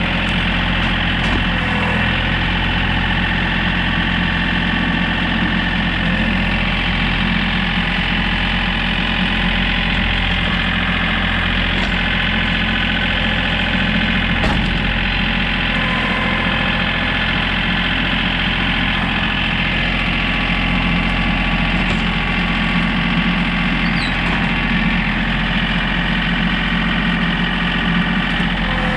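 John Deere compact tractor's three-cylinder diesel engine running steadily while its loader grapple carries a log.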